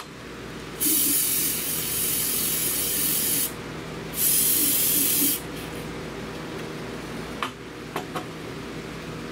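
Aerosol cleaner spraying in two hissing bursts: a long one of nearly three seconds, then a shorter one of just over a second. A few light clicks follow near the end.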